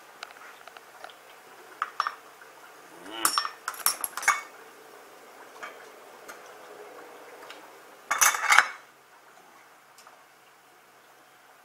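Churros frying in hot oil, a faint crackling sizzle with scattered ticks. Two bouts of utensil clatter against the frying pan and plate, about three to four seconds in and again about eight seconds in, as the fried churros are lifted out.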